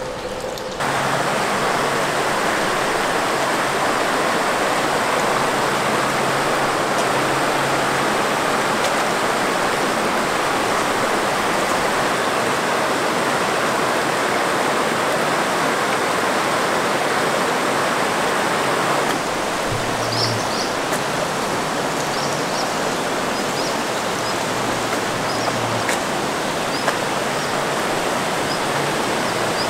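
Water flowing steadily in a stream, an even rushing sound that drops a little in level about two-thirds of the way through.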